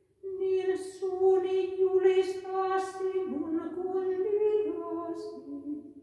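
A woman singing unaccompanied, chanting a psalm verse mostly on one held note, with a brief dip in pitch about halfway and a step down to a lower note near the end.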